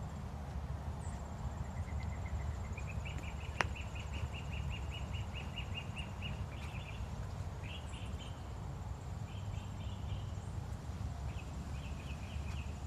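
Garden ambience: a bird gives a rapid, even series of short chirps, rising slightly in pitch, for about five seconds, then scattered chirps, over a steady high insect trill and a low rumble. A single sharp click comes about three and a half seconds in.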